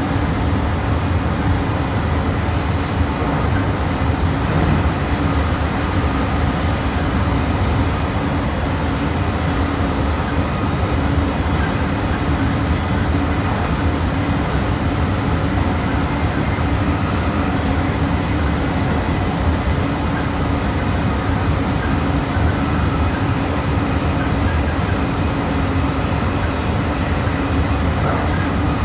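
Meitetsu 3150 series electric train running at a steady speed, heard from inside the car: an even rumble of wheels on rail with a steady hum.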